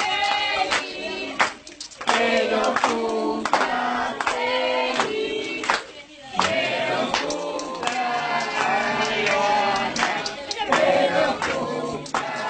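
A group of people singing a birthday song together, with hand clapping along.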